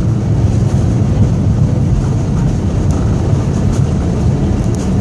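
Airliner cabin noise after landing: a steady low rumble of engines and airframe, with a few faint ticks.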